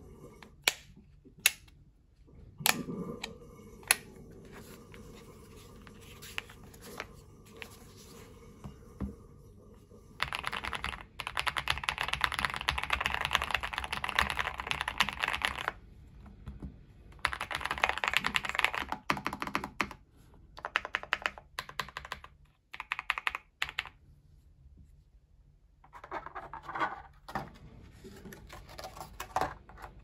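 Typing on a VGN V87 Pro mechanical keyboard: two fast runs of key clacks, each a few seconds long, then scattered single key presses. A few sharp clicks come before the typing, as the keyboard's flip-out feet are snapped shut.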